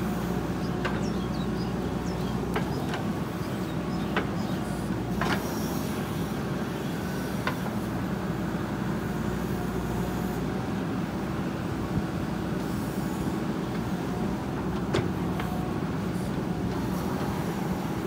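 A JCB 3DX backhoe loader's diesel engine running steadily under load as the backhoe arm digs and works the soil, with a few sharp clanks from the working bucket and arm.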